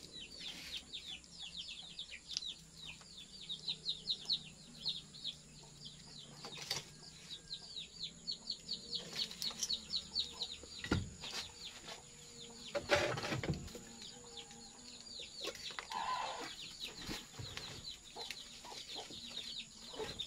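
Chickens peeping: a fast, steady run of short, high, falling chirps that thins out after about twelve seconds. A few knocks of firewood being shifted under the wok break in around the middle.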